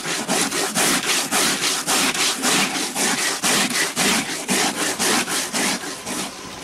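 Cassava roots being grated by hand on a grating board: rhythmic scraping strokes, about three a second, that fade and stop near the end.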